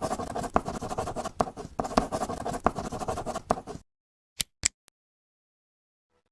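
Rapid, crackly scratching, like scribbling, for about four seconds, then two short clicks and dead silence.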